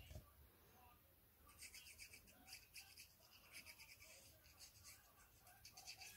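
Faint, rapid scratching of a glue pen's tip rubbed along a narrow paper strip, starting about a second and a half in and going in quick strokes until near the end.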